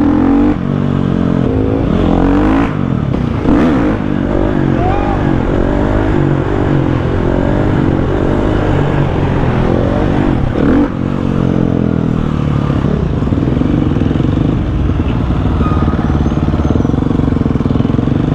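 Several motorcycle engines running together, their pitches rising and falling as they rev.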